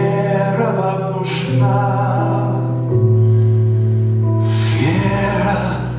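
Live rock-opera stage music: held chords over a sustained bass note that steps lower about three seconds in. A hissing swell comes in near the end.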